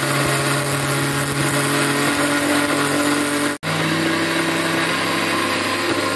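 Electric mixer grinder (mixie) running at speed, dry-grinding roasted urad dal, grated coconut and dried chillies in a small steel jar: a steady motor hum over the noisy rush of the grinding. It cuts out for an instant about three and a half seconds in, then runs on slightly higher in pitch.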